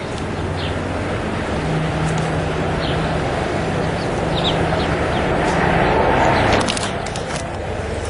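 Motor vehicle engine noise, a steady low hum with a broader rush that builds to a peak about six seconds in and then falls away, as of a vehicle passing by. A few short high chirps sound over it.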